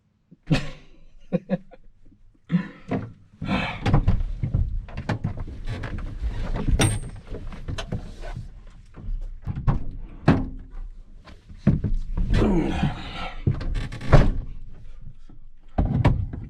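Irregular thunks and knocks of things being handled inside a car's cabin.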